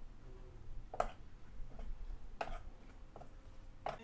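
A utensil clicking against a dish while a dipping sauce is mixed: three sharp clicks about a second and a half apart, with fainter ones between, over a low hum.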